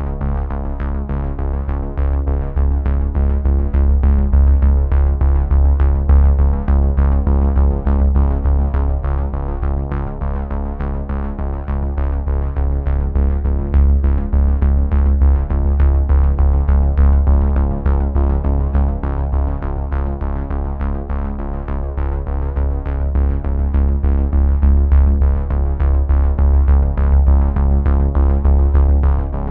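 Background electronic music: sustained synthesizer chords over a heavy bass and a steady beat.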